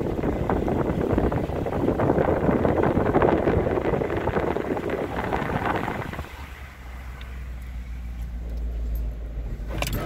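A vehicle driving along a rural road, heard from on board. Rough, rattling road and travel noise for about six seconds, then a quieter, steady low engine drone.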